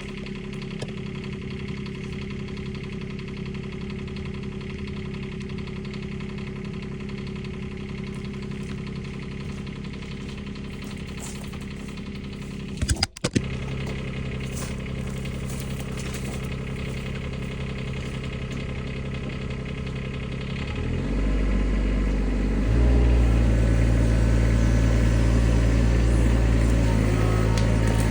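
Bobcat E20 mini excavator's diesel engine running steadily, with a brief break and a couple of clicks about 13 seconds in. About 21 seconds in the engine speed rises, and it runs louder again from about 23 seconds.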